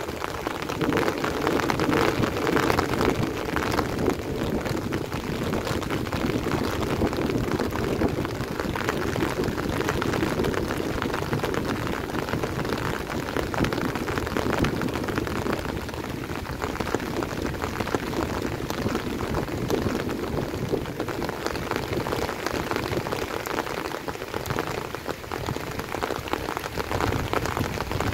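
Heavy rain falling steadily, a dense, even patter of drops on surfaces, a little heavier in the first several seconds.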